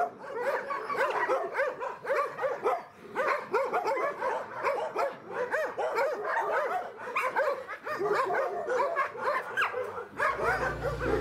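Several dogs whining and yipping together, a dense run of short rising-and-falling cries overlapping one another. Music comes in near the end.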